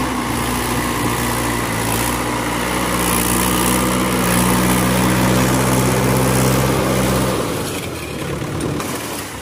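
Tractor diesel engine running steadily, its revs rising a little about two and a half seconds in, then its note dropping away abruptly near the end.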